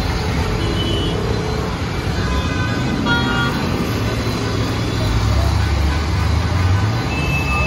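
Road traffic: vehicle engines running in a steady low hum, with a few short horn toots and faint voices of onlookers.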